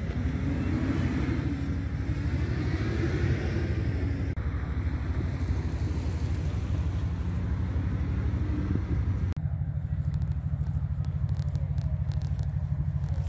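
Off-road vehicle engine idling steadily with a fast low pulsing. In the first few seconds a second engine sound rises and falls in pitch.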